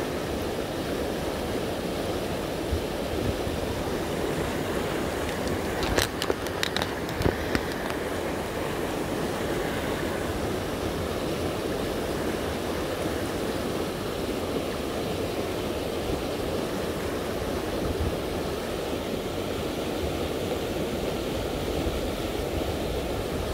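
Steady rush of a fast river, with white water pouring from an outflow close by. A few short clicks about six to seven seconds in.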